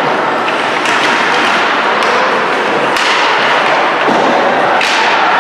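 Ice hockey play in an arena: a steady wash of rink noise with sharp knocks of sticks and puck, the clearest about three seconds in and another near the end.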